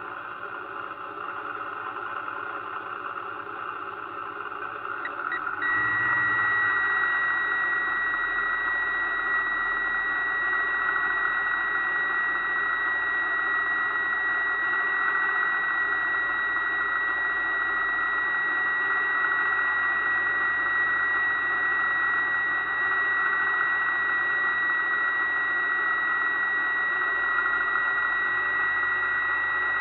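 Aquacraft Rescue 17 RC fire boat's electric drive running, heard from a camera mounted on its deck: a steady whine over water noise. About six seconds in it gets louder, and a steady high-pitched tone comes in and holds.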